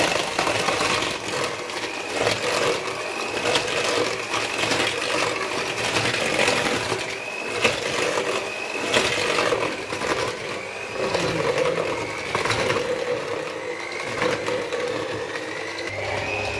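Electric hand mixer running, its beaters working a crumbly butter, sugar and egg-white dough in a plastic bowl. The motor's whine wavers up and down in pitch as the beaters drag through the dough, with a few knocks.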